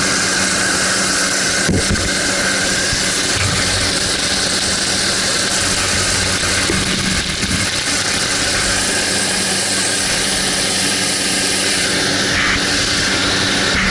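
Light aircraft's engine running steadily in flight, heard inside the cabin with the rush of wind through the open jump door.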